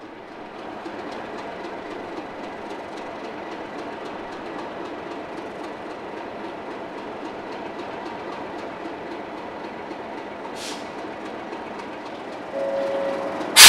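Class 37 diesel-electric locomotive standing at the platform with its engine running: a steady, even running noise with a light regular clatter. A short hiss comes about eleven seconds in, and a steady tone joins near the end.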